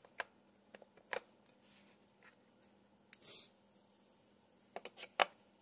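AA batteries being pressed into a plastic radio-control transmitter's battery compartment: scattered light clicks and taps against the spring contacts and plastic case, with a short scrape about three seconds in and a quick run of clicks near the end.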